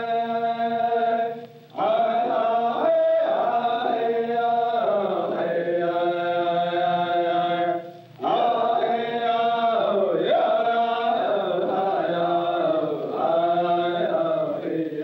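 Chanting: long sung notes over a low steady tone, breaking off briefly about two seconds in and again about eight seconds in, with some notes gliding near the end.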